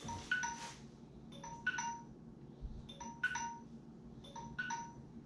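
Small hammer tapping wooden skewers into foam to pin glued skegs in place: quick groups of about three light taps, each with a brief metallic ring.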